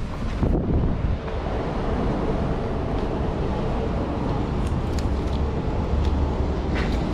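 City street traffic noise: a steady low rumble of passing vehicles, with a few short rustles near the end.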